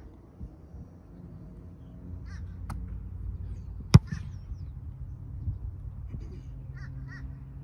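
A football punt: the punter's foot strikes the ball once with a sharp, loud smack about four seconds in, after a lighter smack a little over a second earlier. Crows caw several times in the background.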